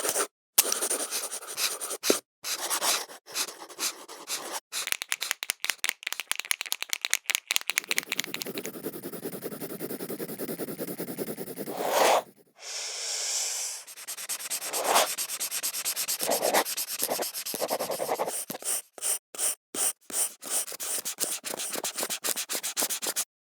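Pen and pencil strokes on paper: runs of short scratchy writing strokes, with a longer stretch of continuous rubbing, like scribbling or shading, around the middle.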